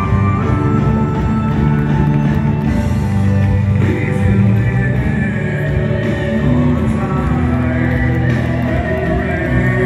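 Live rock band playing a song through a stadium PA, with guitar and long held sung notes over a full accompaniment.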